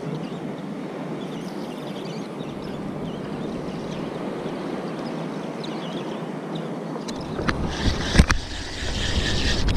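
Shallow sea water lapping, with wind on the microphone. Near the end a low wind rumble comes in, with two sharp knocks.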